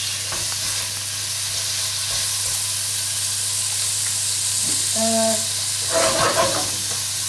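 Carrot sticks and sliced onion frying in olive oil in a pot: a steady sizzling hiss. Short bits of voice come in about five and six seconds in.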